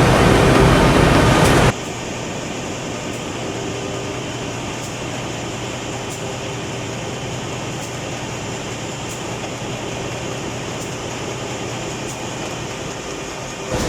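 Corrugated carton flexo printer slotter die-cutter machine running with a steady mechanical noise. It is loud at first, then drops suddenly to a quieter steady running sound about two seconds in, with faint ticks now and then.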